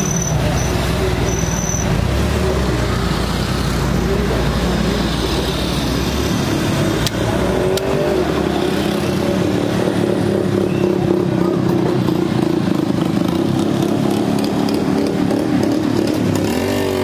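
Busy street traffic: motorcycle and car engines running steadily, with a constant low hum.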